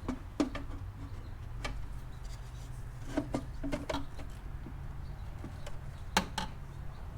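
Scattered clicks and light knocks of intake parts and hose being handled and fitted in the engine bay, with a sharper click a little after six seconds, over a low steady hum.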